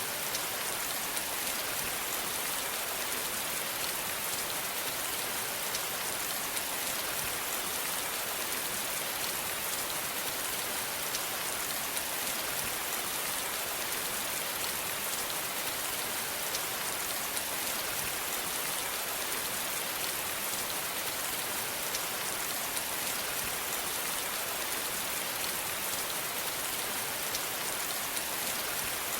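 Steady rain falling on a surface, an even hiss of many drops with occasional faint distinct drop ticks.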